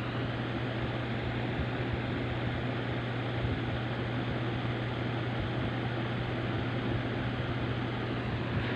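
A steady low hum with an even hiss, as of a small motor running without change.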